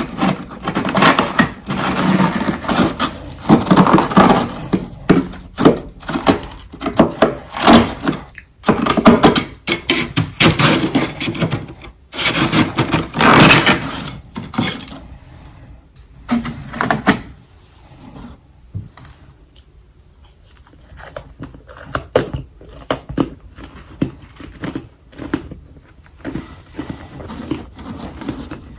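Chunks of humidifier freezer frost being bitten and chewed, loud dense crunching through the first half, then quieter, sparser crunches and clicks.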